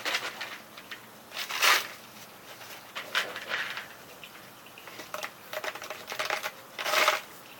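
Cardboard paper towel tube being folded and pressed shut by hand, crinkling and crunching in several short bursts, the loudest about a second and a half in and near the end.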